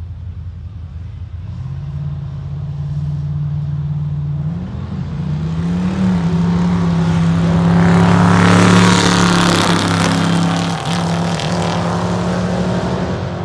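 A car's and a pickup truck's engines revving at the drag-strip start line, then launching at full throttle and accelerating away down the strip; loudest about eight seconds in.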